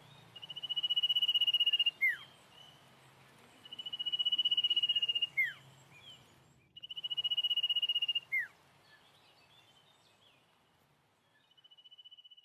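A wild animal's high, rapid trill, given three times for about a second and a half each, every trill followed by a short falling note. A fainter fourth trill comes near the end.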